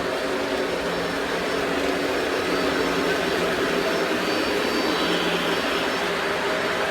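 Lionel Legacy O-gauge model diesel locomotive running on track, its speaker playing a steady diesel engine drone over the hum of the motor and the rolling wheels.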